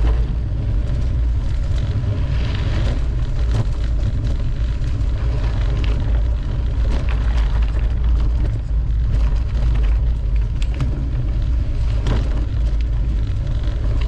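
Mountain bike rolling along a dirt trail, with a steady low rumble of wind on the microphone and scattered clicks and rattles from the bike.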